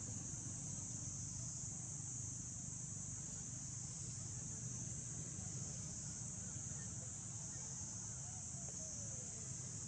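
Steady, high-pitched drone of an insect chorus that does not change, over a low rumble.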